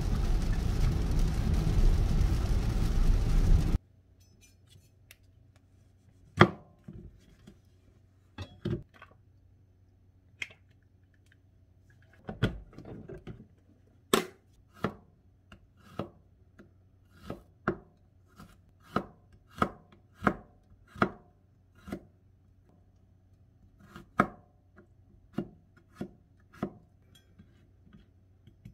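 Road and rain noise inside a moving car, cutting off abruptly a few seconds in. Then a chef's knife on a plastic cutting board: a few scattered knocks, then slow, even chops through a green onion, about one every 0.7 seconds.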